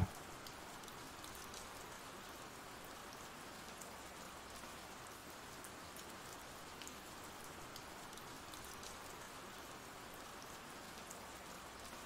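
Faint steady rain ambience: an even hiss of rainfall with a few scattered drop ticks.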